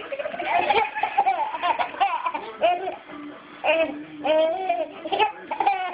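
Baby laughing in short repeated bursts, with music playing in the background.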